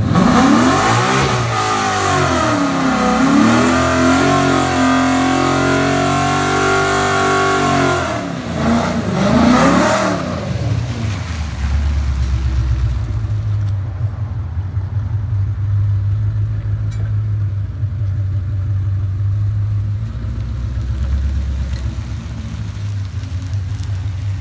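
High-powered V8 car engines at full-throttle acceleration, the engine pitch falling and climbing with gear changes; this cuts out about ten seconds in, leaving a steady low engine rumble.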